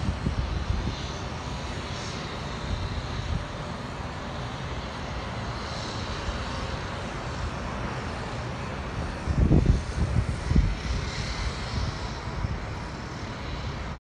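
Wind on the microphone: a steady rushing rumble with stronger low gusts about nine to ten seconds in.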